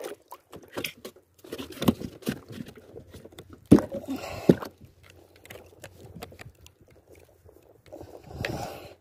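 Close handling noises of gloved hands working a fishing rod and a caught fish: scattered clicks and rustles, with two sharp knocks about four seconds in and a stretch of rubbing near the end.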